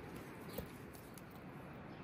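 Quiet handling of bread dough on a floured wooden cutting board, with one light tap about half a second in, over a faint steady hiss.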